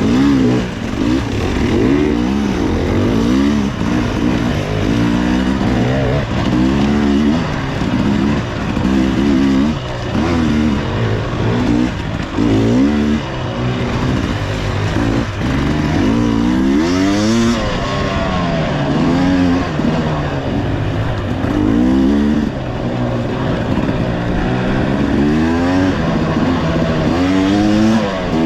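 Dirt bike engine revving up and down over and over, rising and falling in pitch every second or two as the bike picks its way over rocks, roots and small ledges.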